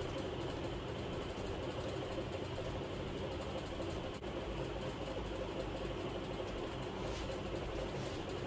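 A steady mechanical hum holding at an even level, with no distinct knocks or clicks.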